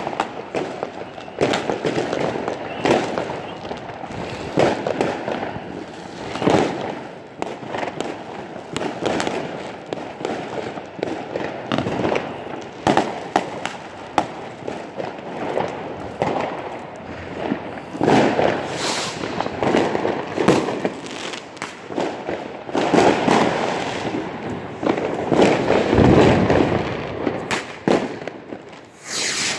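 Many fireworks going off at once all around: a constant rattle of overlapping bangs and crackles, with several heavier spells of louder explosions.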